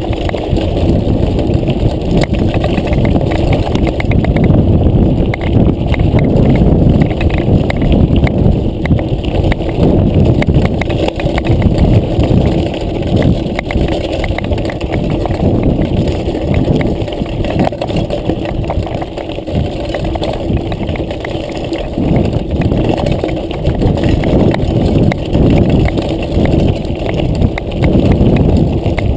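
Mountain bike riding down a loose, rocky gravel track: a steady, loud crunch and rattle of tyres and frame jolting over stones, with many small irregular knocks.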